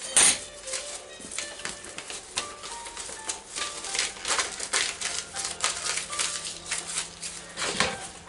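Torreznos (pork rinds with fat) frying slowly in oil in a pan, with irregular crackling and spitting of fat. Mixed in is the crinkling of a plastic wrapper being handled, with the sharpest crackles just after the start and near the end. Soft background music plays underneath with a few held notes.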